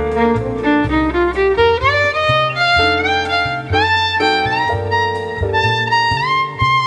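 Background music: a violin-led melody over a bass line and plucked accompaniment.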